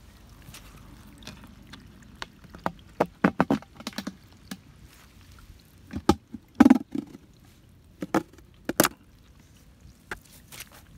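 Plastic bucket trap and its lid being handled: a scattering of sharp knocks and clicks, clustered in a few bursts, with the loudest knocks a little past the middle.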